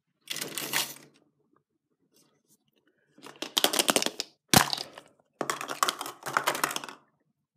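Hollow plastic surprise egg being handled and opened, with bursts of clicking and rattling plastic and one sharp snap a little past halfway as the two halves come apart.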